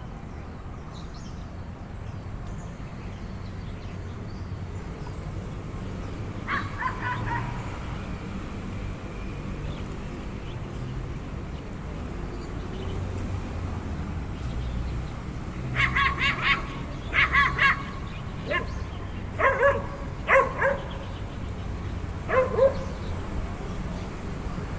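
Short animal calls in several quick bursts over a steady low rumble: a cluster about six seconds in, a rapid series around two-thirds through, then a few lower calls near the end.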